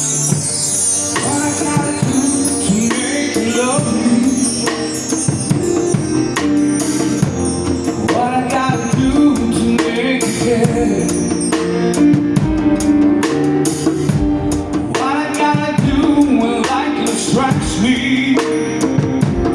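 Music played by a band, with a drum kit keeping a steady beat under a singing voice.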